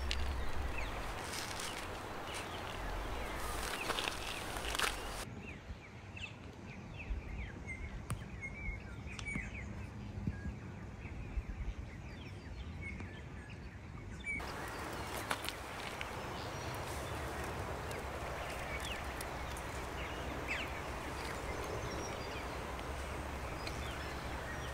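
Outdoor ambience: a steady background hiss with short bird chirps and calls scattered through it, and a few light clicks.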